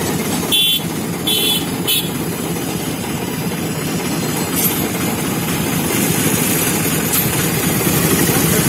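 Vehicle engine idling steadily with a low, even hum, with a few short high chirps in the first two seconds.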